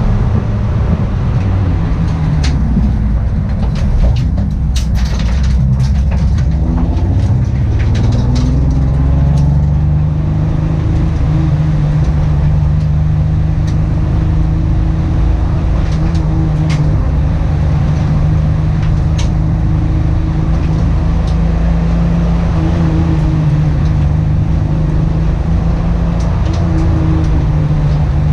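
Car engine with a misfire, running steadily; its pitch climbs between about six and ten seconds in, then holds level, with scattered short clicks.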